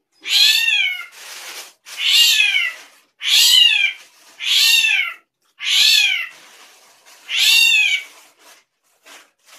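Ashy drongo giving a series of cat-like mewing calls, six rising-then-falling notes each under a second long, about one every second and a half.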